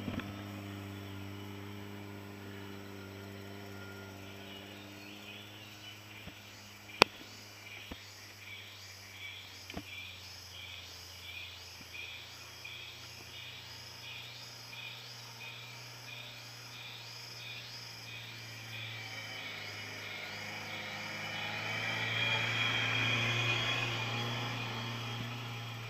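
Rhythmic high-pitched insect chirping, about two pulses a second, over a low steady hum. Near the end a car passes close by and is the loudest sound, and there is a single sharp click about seven seconds in.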